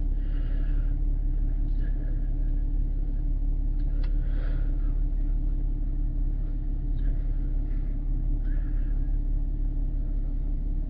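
2013 Camaro's engine idling steadily, a low even hum heard from inside the cabin.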